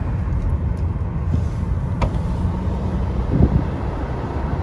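Steady low rumble of a car heard from inside the cabin, with a sharp click about two seconds in.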